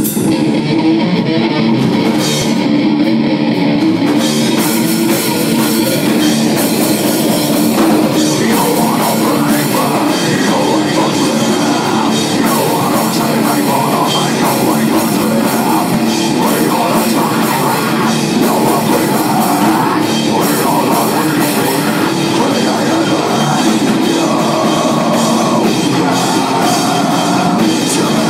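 A rock band playing: guitar and drum kit, loud and steady throughout.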